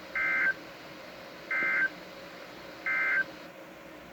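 Three short bursts of Emergency Alert System SAME digital data tones from NOAA Weather Radio, each under half a second and a little over a second apart, over steady radio hiss. It is the end-of-message code that closes the severe thunderstorm warning.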